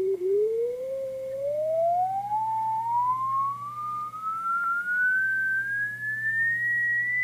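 Beat tone of a steady signal-generator carrier received in CW mode on an ICOM IC-730 HF transceiver, heard from its speaker as the tuning dial is turned: one clear whistle that glides smoothly up in pitch from low to high. A low steady hum runs underneath.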